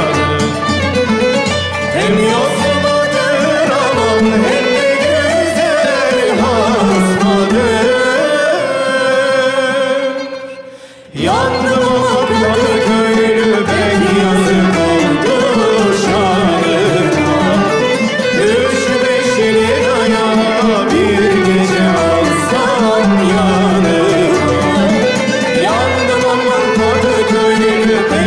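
Turkish classical ensemble performing a Mâhûr şarkı: singing over ud, keman (violin) and kanun, with frame drums (bendir and def) keeping a steady beat. The music drops away briefly about ten seconds in, then the whole ensemble comes back in.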